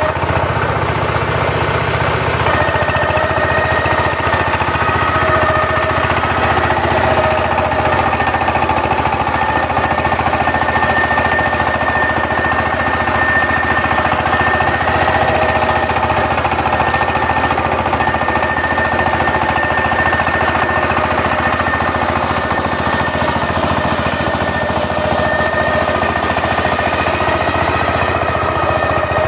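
Single-cylinder diesel engine of a two-wheel power tiller running steadily as the machine works across a field.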